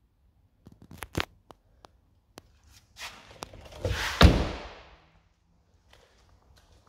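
BMW 1 Series car door swung shut, closing with one solid thunk about four seconds in, the loudest sound here. A few light clicks and knocks from handling come before it.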